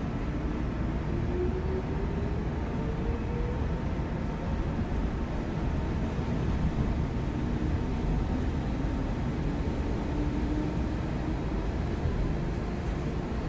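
Hanshin 8000 series electric train running: a steady rumble of wheels on rail, with a motor whine that rises in pitch over the first few seconds as the train picks up speed, and a fainter whine that rises slowly again later.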